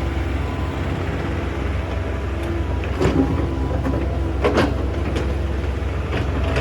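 Hydraulic excavator's diesel engine running steadily, with sharp clanks about 3 seconds in and again near 4.5 seconds as the bucket handles stony soil.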